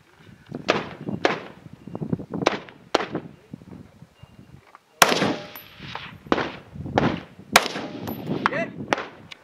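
A scoped AR-style rifle with a muzzle brake firing a string of single shots, about one every half-second to second, with a short pause partway through.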